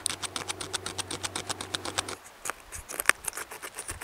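Flint tool carving into ash wood: quick repeated scraping strokes, roughly seven a second, for about two seconds, then slower, scattered scrapes and clicks with one sharper knock about three seconds in.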